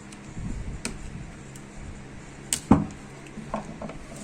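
Screwdriver prying the retaining clip off a power-steering rack's rubber dust boot: a few sharp clicks and knocks, the loudest a double knock about two and a half seconds in, then small ticks.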